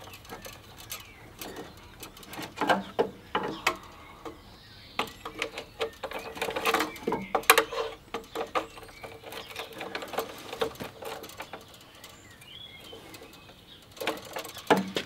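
Irregular clicks, knocks and light metallic rattles as a finned aluminium transmission oil cooler is handled and positioned against a car's front panel. The knocks bunch up about two to three seconds in, again around seven seconds, and near the end.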